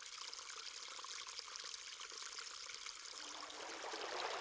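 Creek water running over rocks, a faint steady trickling that swells louder near the end.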